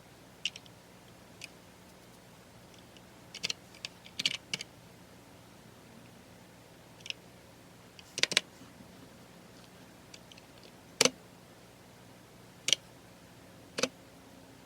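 Computer keyboard keys being pressed now and then: scattered single clicks and short clusters of keystrokes rather than steady typing, the loudest strokes about eight and eleven seconds in.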